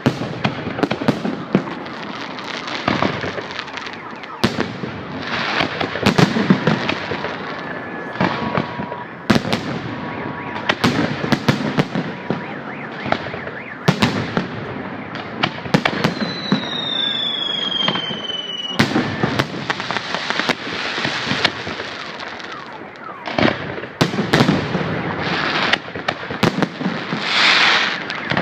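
Fireworks display: a continuous run of sharp bangs over dense crackling, with a falling whistle about halfway through.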